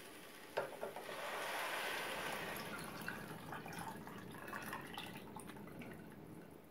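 Thick homemade chicken broth poured from a glass bowl into a soup pot: a light knock, then a splashing pour that starts about a second in, is strongest early and thins out gradually.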